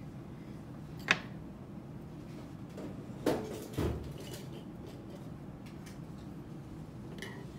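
Small tools being set down on a wooden desk over a steady room hum: a sharp click about a second in, two knocks around three and a half seconds in, and a few light clicks near the end.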